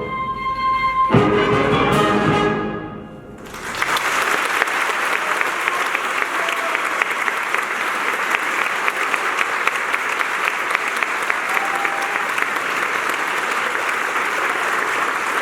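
A music ensemble ends on a final chord, struck about a second in, that rings and fades away. Then an audience breaks into steady applause that carries on for the rest of the time.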